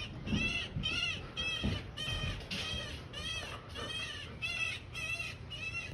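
An animal calling over and over: a steady run of short, high cries that rise and fall in pitch, about two a second.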